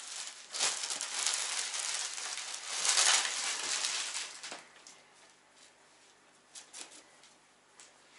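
Crinkling and rustling of a clear plastic packing bag being handled, loudest about three seconds in and dying away after about four and a half seconds; a few faint rustles follow.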